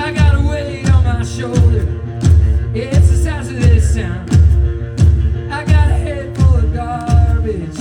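Rock band music with a lead vocal over a steady bass-drum beat, about three beats every two seconds.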